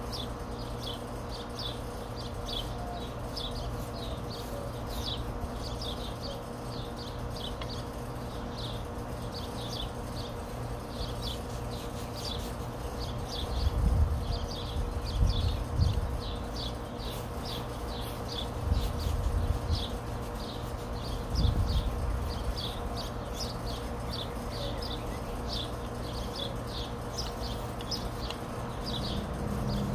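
A steady run of short, high chirps, a few a second, from a small outdoor creature. Low rumbles come twice in the middle.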